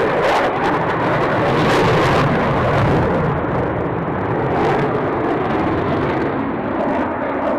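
Aircraft engine noise from a plane on or over the airfield: a loud, steady rush that is loudest about two seconds in and then eases slightly.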